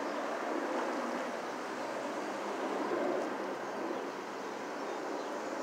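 Steady rushing background noise under a concrete road bridge: traffic passing overhead, mixed with flowing creek water.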